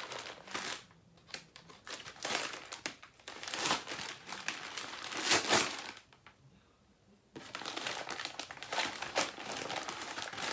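Brown paper mailer package crinkling and rustling as it is handled and opened. The crinkling stops for about a second past the middle, then starts again.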